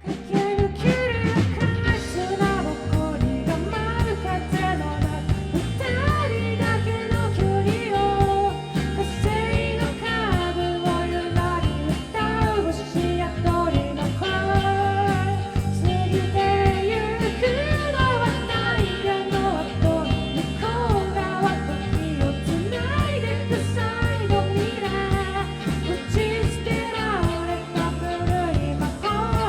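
Band playing a rock song live: a singer's voice over guitar, with a steady beat.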